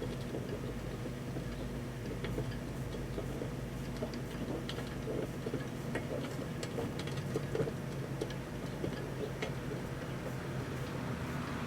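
Microwave oven running with a steady hum, with scattered irregular ticks and clicks on top, while it heats a snow globe.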